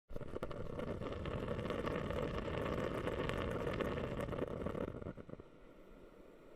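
Water rushing and splashing in a dense, crackly wash that starts abruptly, then drops to a softer level about five seconds in.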